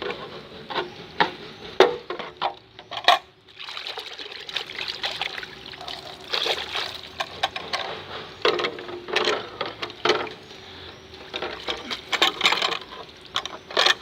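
Water splashing and trickling as a plastic wind shield is washed and rubbed, with irregular knocks and scrapes from handling the plastic.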